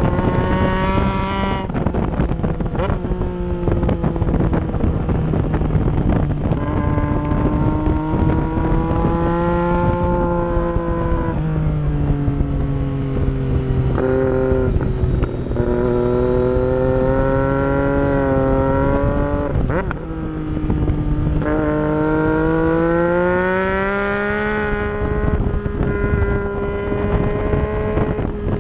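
2012 Triumph Street Triple's 675 cc inline three-cylinder engine at high revs on track, heard on board, its pitch climbing under throttle and dropping sharply several times with gear changes and braking into corners.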